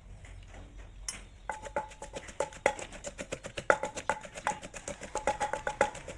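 Background music with a quick, even beat of wood-block-like percussion and pitched knocking notes, starting about a second and a half in.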